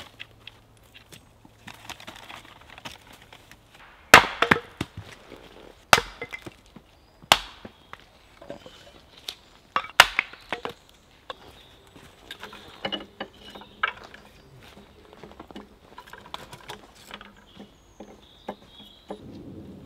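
An axe chopping and splitting firewood on a wooden chopping block: four sharp, loud chops, each a couple of seconds apart, followed by lighter knocks and clinks of wood being handled.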